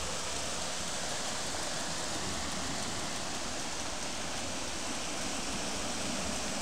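River water rushing steadily over a low concrete weir, a constant, even rush.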